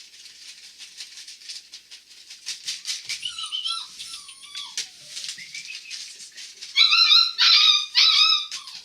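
Young puppies whining: thin high whines a few seconds in, then three louder whines near the end, over quick light clicking and rustling.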